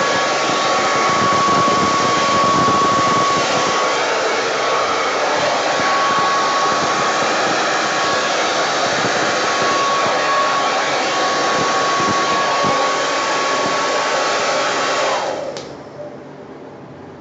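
Hair dryer running steadily, a loud rush of air with a thin whine, used to blow pour paint across a canvas. It switches off about fifteen seconds in.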